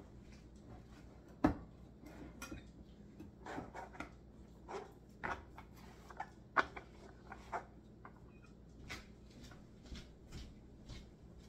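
Irregular clicks and knocks of kitchen things being handled, with two sharper knocks, one about a second and a half in and one a little past halfway.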